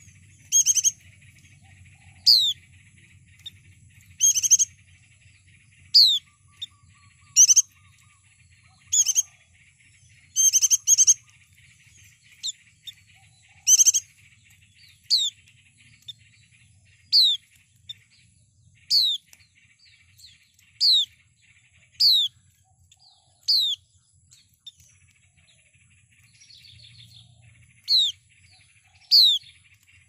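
Caged white-eye calling: loud, short, high chirps that slide downward in pitch, repeated every second or two, some in quick pairs.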